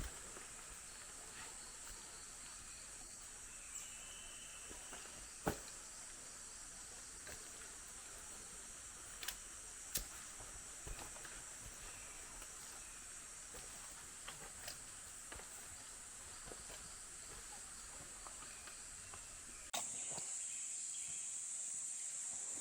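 Rainforest ambience: a steady, high-pitched insect drone with a few short chirps and occasional sharp clicks. About twenty seconds in it becomes abruptly louder.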